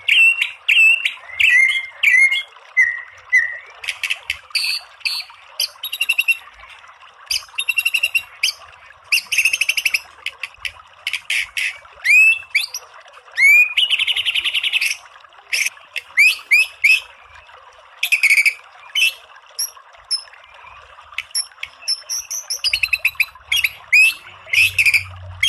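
White-rumped shama singing a long, varied song: clear whistled notes, quick upward-sweeping calls and rapid repeated 'shooting' phrases, with a short buzzy trill about halfway through. A steady hiss runs underneath.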